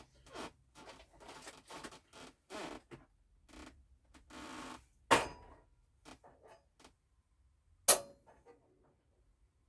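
Pressure cooker lid being set on the pot and twisted to lock: a run of short scrapes and clicks, then two sharp clicks about five and eight seconds in.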